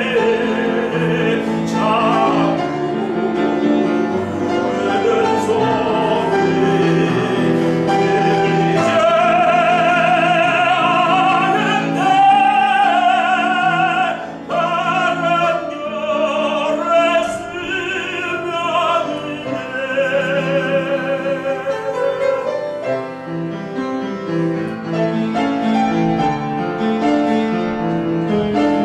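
Tenor singing a Korean art song in operatic style with wide vibrato, accompanied by piano. About three quarters of the way in the voice drops out and the piano carries on alone.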